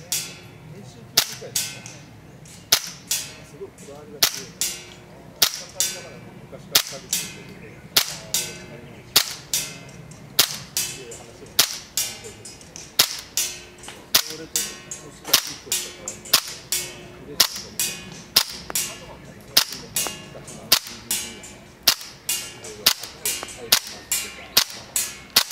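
Tokyo Marui HK45 gas blowback airsoft pistol firing shot after shot, each a sharp crack with the slide cycling, at roughly one shot a second and sometimes two in quick succession.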